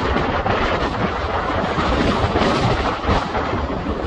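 Strong wind blowing over the microphone: a steady, gusting rush of noise with a low rumble.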